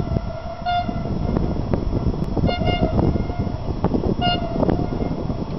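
Train horn sounding a series of short toots, about four in all, over a loud, gusty low rumble.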